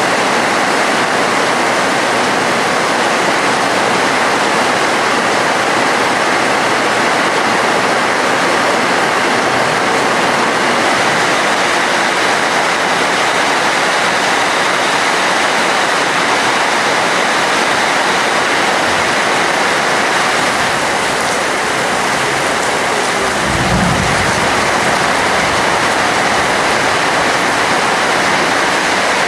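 Heavy rain falling steadily, a dense even hiss that holds at one level. A brief low rumble comes about three-quarters of the way through.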